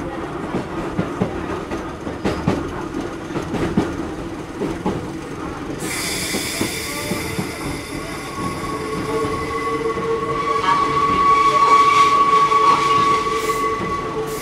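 Hakone Tozan Railway Moha 1-type electric car running, heard from inside near the gangway: wheels rumbling and clicking over the rails, a sudden hiss about six seconds in, then a steady high-pitched wheel squeal from about eight seconds on.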